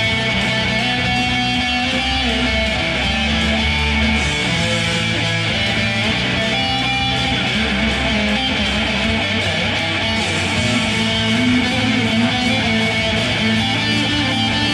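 Electric guitar played through an amplifier, chords and notes ringing on without a break.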